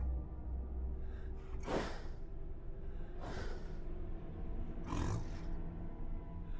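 Three slow, heavy breaths about a second and a half apart, over a low steady drone.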